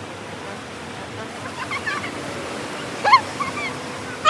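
Ocean surf washing steadily on a beach, with faint voices and a short, high, rising cry about three seconds in.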